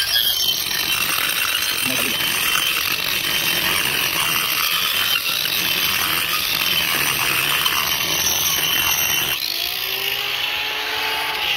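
Electric angle grinder grinding down the top of a cast concrete pier: a steady, harsh grinding noise that stops about nine seconds in, when the grinder comes off the concrete.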